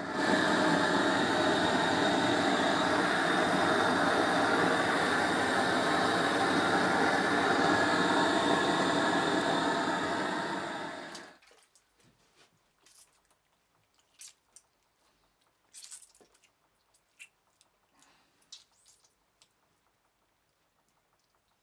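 Gas torch flame burning on a clay pot with a loud, steady rushing noise that fades out after about eleven seconds. After that come faint, scattered wet squishes and small taps of hands pressing and smoothing soft clay.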